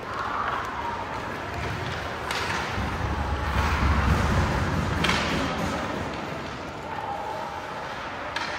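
Ice hockey play: three sharp knocks of puck and sticks, spread a few seconds apart, over a steady scraping of skates on ice, with a low rumble midway and faint distant shouts.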